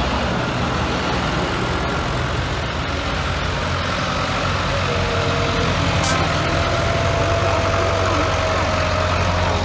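Diesel engines of farm tractors running as they drive slowly past one after another: a steady engine drone, with a deeper hum building about three and a half seconds in as the next tractor comes by.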